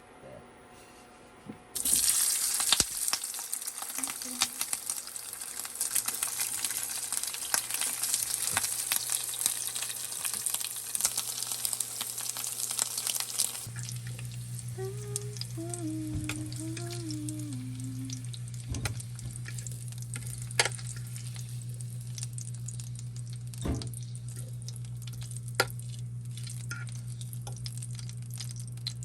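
Food sizzling and crackling in a hot pan for about twelve seconds, then cutting off abruptly. A steady low hum takes over, with scattered light clicks.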